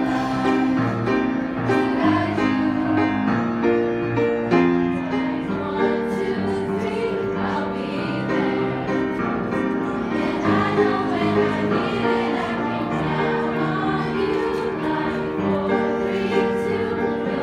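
A school choir of young students singing together with piano accompaniment.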